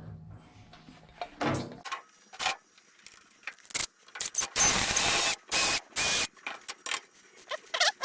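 Handling noise from a disassembled power cord reel: scattered clicks and knocks of its parts, with three short, louder scraping bursts about halfway through.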